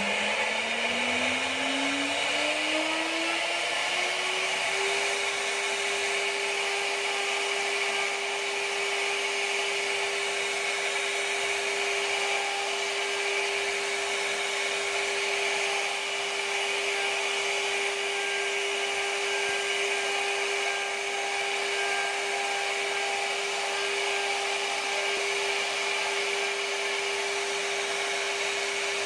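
CNC router spindle whining as it spins up, its pitch climbing over the first few seconds and then holding steady. It runs at a constant high speed while the bit carves a wooden board.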